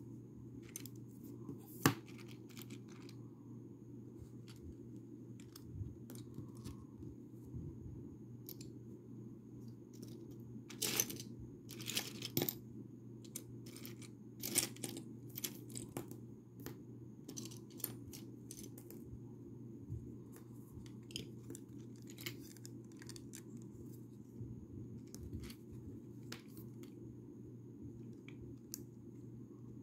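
Plastic Lego pieces clicking and clattering as they are handled during a build, with a few louder clattering bursts in the middle, over a steady low hum.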